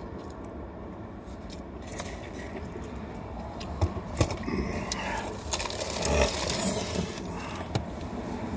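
Low steady rumble of a car cabin, with scraping and rustling from things being handled close by. There are a couple of sharp knocks a little under four seconds in, and a louder rustling stretch around six seconds in.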